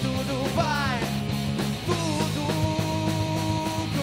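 A rock band playing live on electric guitars, electric bass and drum kit, in a passage without words. A lead line slides up and down in pitch early on, then from about halfway in long notes are held over the steady bass and drums.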